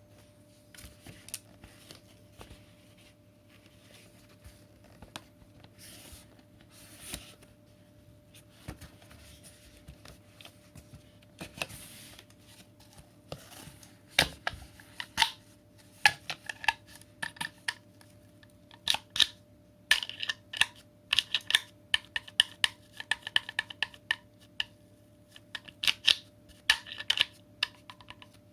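Hard clicks and knocks from handling the plastic parts and accessories of a cordless stick vacuum, which is switched off. They are scattered and soft at first, then come thick and sharp from about halfway through.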